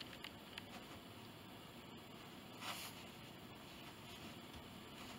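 Near silence: quiet room tone with faint rustles and light ticks of a crochet hook and yarn being worked, and one soft swish a little past halfway.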